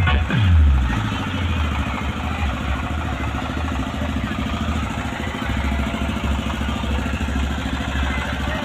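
A deep bass note sliding down in pitch in the first second, then a large engine running steadily at idle with a fast, even low pulse.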